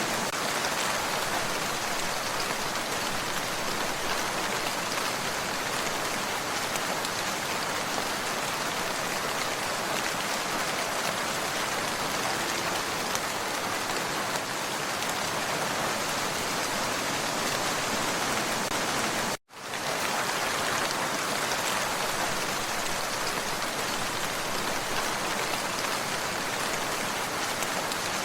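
Steady rain falling, an even, dense hiss of drops. It cuts out for a split second about two-thirds of the way through, then carries on unchanged.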